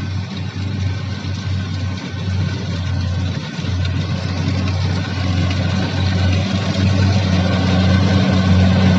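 Kubota combine harvester's diesel engine running steadily under load, a low drone that grows gradually louder, as if the machine is drawing nearer.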